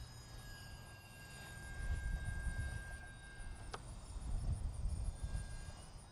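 Faint, thin steady whine of the FMS Cessna 182 RC plane's electric motor and propeller in flight, ending a little past halfway with a single click. Wind rumbles on the microphone.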